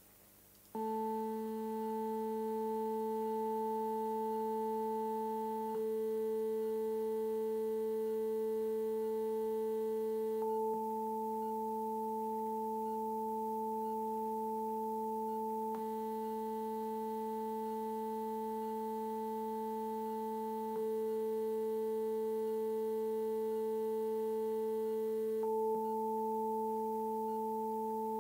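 Electronic sine test tones at 220, 440 and 880 Hz sounding together, starting about a second in. The balance between the tones shifts about every five seconds, and for two stretches of about ten seconds a buzzier layer of many higher overtones sounds with them.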